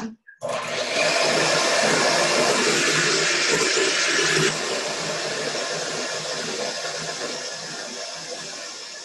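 Electric hand mixer running steadily, its beaters whipping heavy cream in a glass bowl, the cream about halfway to whipped. It is louder for the first four seconds or so, then drops and slowly grows quieter.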